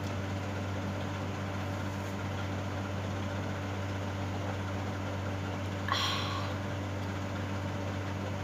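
Steady mechanical hum of a running appliance in a small room, with one short, sharp sound about six seconds in.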